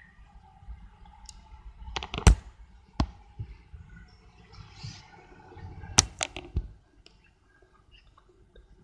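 A few sharp knocks and clicks, the loudest about two seconds in and another pair about six seconds in, over a faint steady hum that dies away about seven seconds in.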